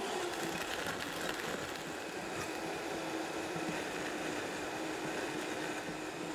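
High-speed countertop blender running steadily, a continuous motor hum with one steady tone, as it blends leafy greens and avocado into a thick green shake while a tamper pushes the contents down. This is the first blend of the main ingredients, before the ice goes in.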